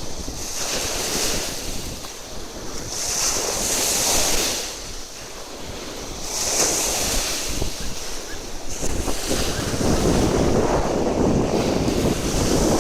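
Sea waves washing onto the shore, swelling and ebbing every few seconds with a hissing wash at each peak, mixed with wind buffeting the microphone.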